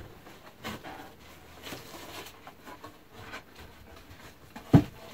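Wooden bee box sides being handled and pushed together at their finger joints: a few light wood-on-wood knocks, with a sharper knock near the end.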